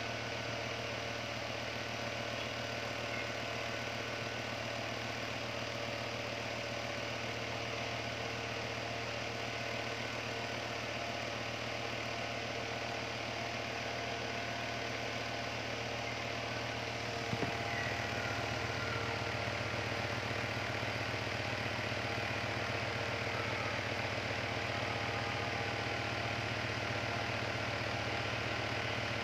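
Small plastic desk fan running steadily: a motor hum with blade whir. There is a single click a little over halfway through, after which the hum is slightly louder.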